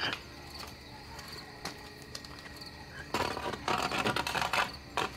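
Crickets chirping steadily in the night background. About three seconds in, a louder rustling scrape lasts for over a second.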